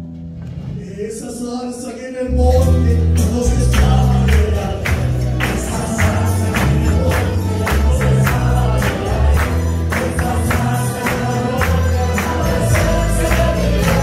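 Live church band playing an upbeat worship chorus, with tambourine, bass and voices singing; the full band with bass comes in about two seconds in.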